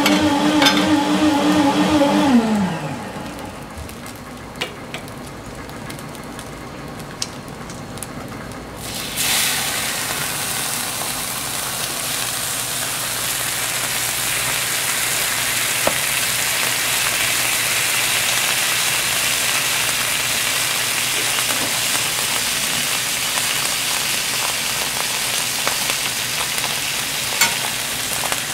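Food sizzling on a hot flat-top griddle. The steady frying hiss starts suddenly about nine seconds in, as food goes onto the plate, and carries on evenly with a few small clicks. It is preceded by a humming tone that glides down and dies away in the first few seconds.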